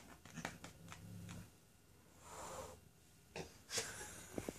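Angry domestic cat hissing: a short breathy hiss about halfway through and more bursts near the end, with a few light clicks within the first second.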